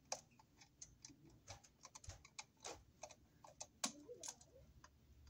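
Faint, irregular clicks and ticks of a screwdriver turning a terminal screw on a twist-lock receptacle, clamping the ground wire under its pressure plate.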